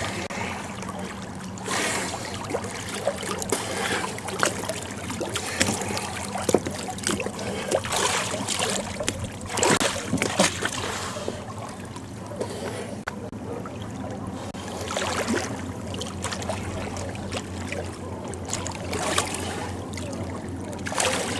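Water splashing and sloshing close to the microphone as a person swims, pushing an inflatable boat. The splashes come irregularly, with the loudest group about ten seconds in.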